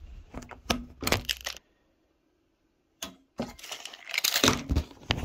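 Camera-handling noise: scattered knocks, clicks and rustling as the camera is moved and set down. About a second and a half in, the sound drops out to dead silence for over a second where the recording cuts, then the knocking and rustling resume and thicken near the end.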